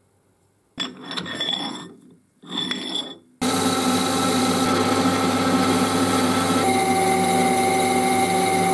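Metal lathe running and cutting a metal tube, a loud, steady machine sound with a held whine that starts suddenly about a third of the way in, after two short bursts of noise. Near two-thirds of the way through the whine changes pitch as a boring bar works inside the bore.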